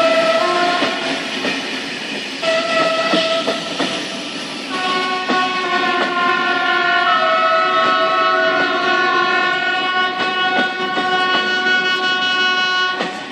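Train horns sounding in long, overlapping blasts at several pitches, held steadily from about five seconds in, over the rolling of passenger coaches with wheels clicking on the rail joints.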